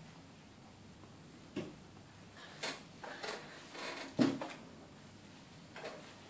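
A few short splashes and knocks as a toddler's hands slap and swish the foamy water in a plastic baby bath, the loudest about four seconds in.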